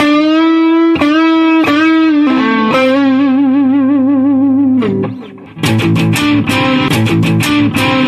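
Electric guitar through a Vox amp: held overdriven lead notes with bends and vibrato, then, about five and a half seconds in, choppy distorted chords at a higher-gain setting.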